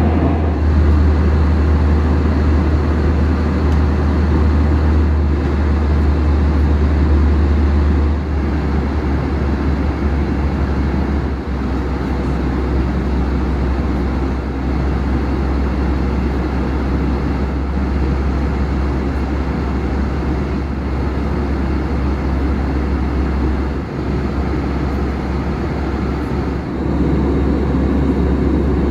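Steady in-flight cabin noise of an Airbus A321ceo: a loud, even rush of engine and airflow with a deep low hum underneath. It drops a little about eight seconds in and rises again near the end.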